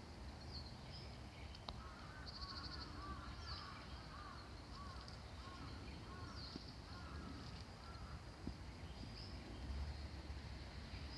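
Faint bird calls: a run of short, repeated chirping calls about twice a second, with higher chirps and a brief trill, over a low steady rumble.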